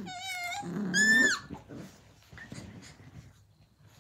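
Australian cattle dog (blue heeler) puppies whining and yelping while they play: a wavering high whine, then a louder yelp about a second in that drops in pitch as it ends, followed by quieter scattered sounds.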